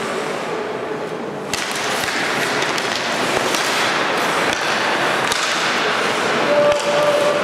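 Ice hockey play after a faceoff: skates scraping and carving the ice, with hockey sticks and puck clacking now and then. A sharp knock about a second and a half in, and several more through the rest.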